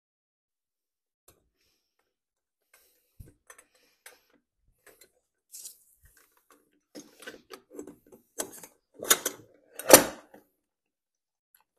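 Clicks and rattles from a boat's transom launching wheel and its folding steel bracket being handled, the wheel newly pushed onto its hollow axle. Sparse at first, then a quick run of knocks, the loudest a sharp knock near the end as the wheel is swung up.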